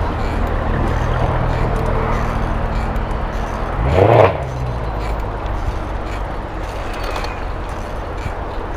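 Road traffic around a moving bicycle: a steady low rumble of engines, with one vehicle passing close about four seconds in, its engine note rising and then dropping as it goes by.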